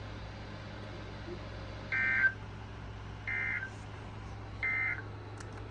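Emergency Alert System end-of-message data tones: three short bursts of two-tone digital warble, spaced a bit over a second apart, marking the end of the severe thunderstorm warning. A faint steady hum runs underneath.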